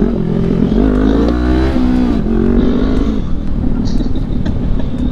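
Motorcycle engine revved hard under acceleration to lift the front wheel in a wheelie attempt, its pitch rising for about a second and then dropping sharply about two seconds in, followed by a steadier lower drone.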